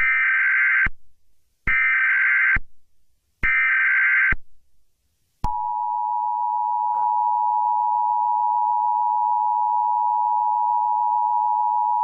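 Emergency Alert System SAME header: three short bursts of warbling digital data tones, each under a second and spaced about a second apart. After a short gap, the steady two-tone EAS attention signal starts about five and a half seconds in and holds unbroken.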